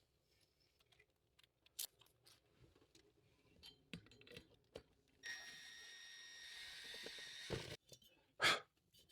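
Power drill driving the last 3-inch construction screw through a wall bracket: a few light clicks, then the drill runs with a steady whir for about two and a half seconds starting about five seconds in, followed by two short knocks.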